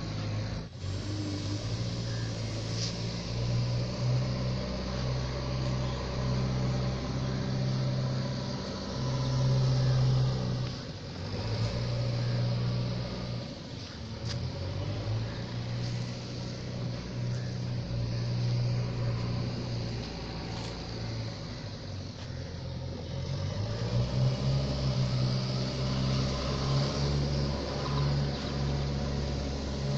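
Small electric RC plane's brushless motor and propeller buzzing in flight, its pitch stepping up and down as the throttle changes.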